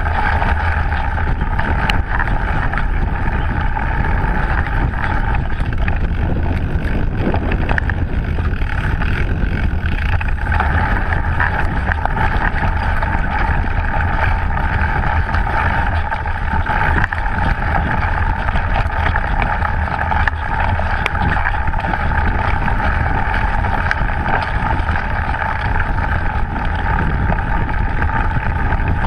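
Mountain bike ridden fast down a dirt forest trail, heard from a camera mounted on the bike: steady wind rush over the microphone and tyre noise on the dirt, with frequent small rattles and knocks from the bike over the bumps.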